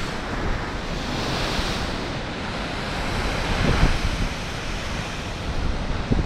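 Rough sea surf breaking and surging against a concrete sea wall, with wind gusting on the microphone.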